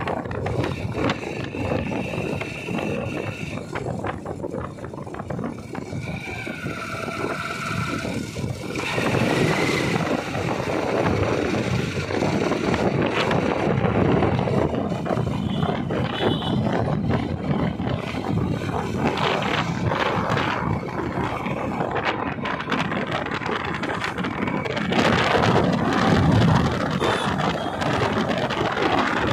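Motorcycle ridden along a street: engine running under a dense rush of wind on the phone's microphone, with a few short steady higher tones in the first ten seconds.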